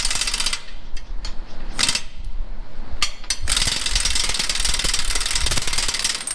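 A power tool working on steel with a fast, rattling buzz, run in a few short bursts and then steadily for about three seconds near the end.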